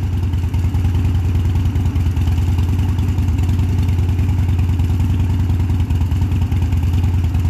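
Cruiser motorcycle's air-cooled V-twin engine idling steadily, with a fine rapid pulse and no revving.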